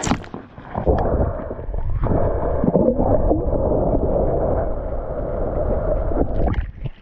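Muffled underwater gurgling and rushing of water, heard through a submerged action camera, from about a second in until just before the end.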